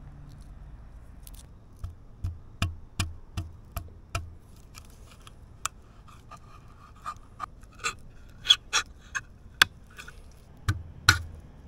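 Pocket knife blade stabbing and prying at a tin can lid to open a can of baked beans: a run of sharp metallic taps from about two seconds in, two or three a second at first, then scattered clicks and scraping as the lid is worked open, with a few louder clicks near the end.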